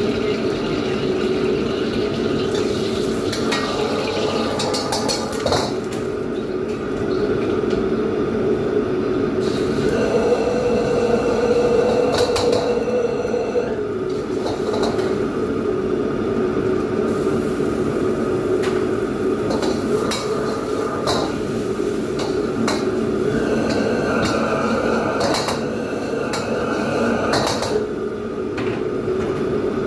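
A metal ladle clinking and scraping against a steel wok several times, irregularly spaced, over a steady loud background of the wok range and extractor hood running.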